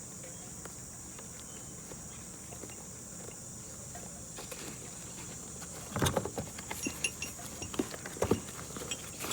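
A steady high-pitched hiss, then from about six seconds in a series of metal clinks and knocks as tools and a tool kit are handled in the toolbox.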